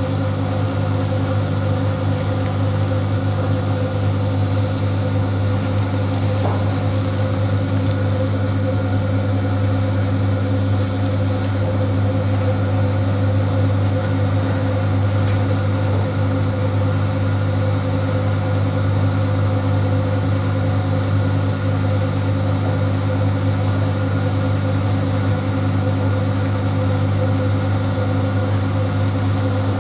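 ED9M AC electric multiple unit heard from inside the carriage while running: a steady low hum with even rolling noise, and a couple of faint clicks.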